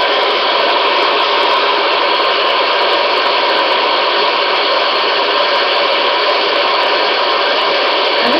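White noise played back continuously: a loud, steady, even hiss.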